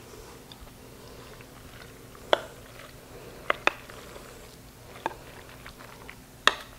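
Creamy egg-noodle casserole mixture being scraped with a wooden spoon from a mixing bowl into a ceramic baking dish: soft wet squelching, with a few sharp knocks of spoon against bowl or dish.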